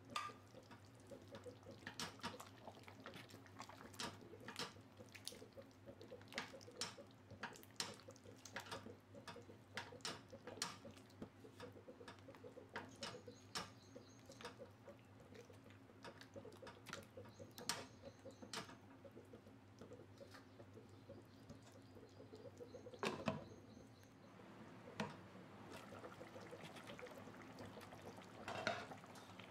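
Faint curry gravy simmering in a pot, bubbling with scattered pops and plops over a steady low hum. A spatula stirs through it partway in.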